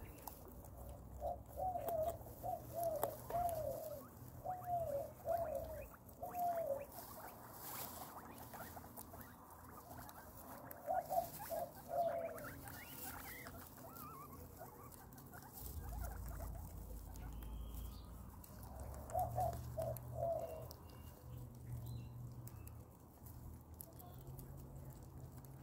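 Guinea pigs eating, with soft crunching and rustling clicks. Short squeaks come in a run of about six near the start, then shorter runs of two or three twice more.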